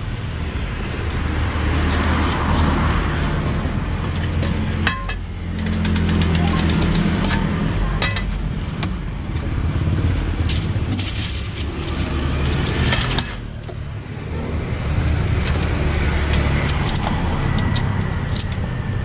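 A motor runs with a steady low hum, with scattered sharp clinks over it. The sound changes abruptly twice, about five and about thirteen seconds in.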